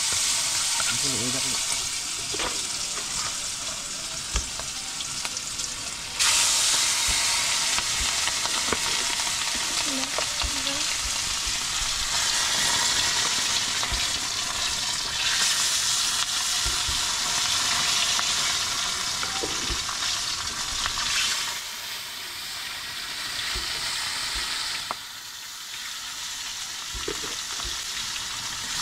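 Pieces of grouper sizzling in a hot wok over a wood fire, a steady frying hiss. It grows louder about six seconds in and drops back in the last few seconds.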